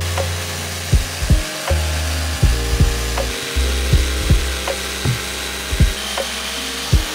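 Corded electric jigsaw cutting through painted wooden planks, heard under background music with a steady beat.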